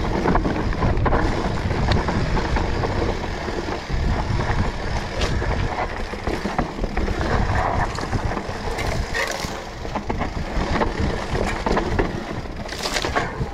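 Mountain bike rolling down a dirt singletrack, heard from a handlebar-mounted camera: a steady low rumble of wind and knobby tyres on dirt, with scattered clicks and rattles from the bike over bumps.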